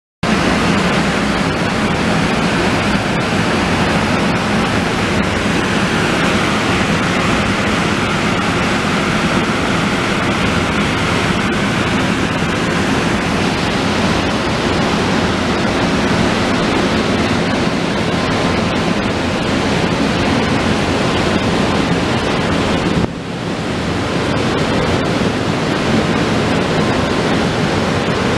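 Class 18E electric locomotive's cooling blowers running steadily as a loud, even rush of air, with a brief drop in level near the end.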